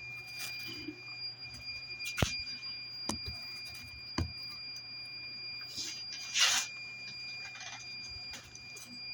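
Fire alarm sounding a steady high-pitched tone, over a low hum, with several sharp clicks and short rustles of handling about two to four seconds in and again near six and a half seconds.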